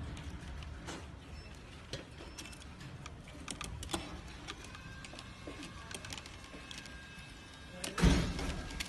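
Small clicks and rattles of a plastic quadcopter frame and its wires being handled, with one louder knock against the desk about eight seconds in.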